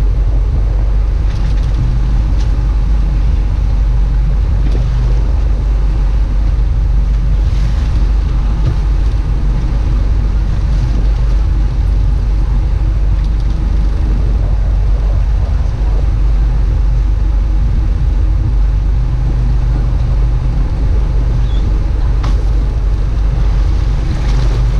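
A boat's engine running steadily: a constant low drone under a haze of wind and water noise.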